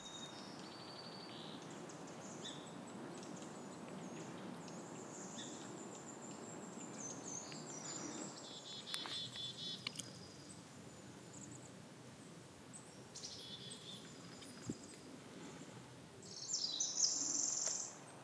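Forest ambience with songbirds calling: short high chirps and trills on and off over a steady background hiss, with the loudest song near the end.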